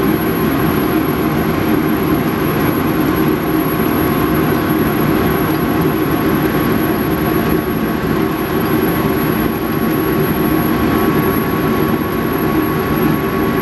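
Metal lathe running steadily, a constant mechanical drone with a steady whine, as the chucked turning attachment spins for a runout check with a dial indicator.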